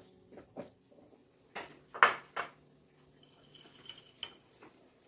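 Wire spider strainer clinking and knocking against the metal wok and the ceramic plate as fried potato strips are lifted out and tipped onto the plate. A few light clinks, then three sharper knocks about a second and a half to two and a half seconds in, the middle one the loudest.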